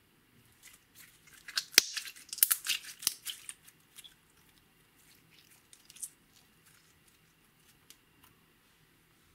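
Clear slime being stretched, folded and squeezed by hand, crackling and popping in a quick run of sharp clicks about two to three seconds in, then only a few scattered clicks.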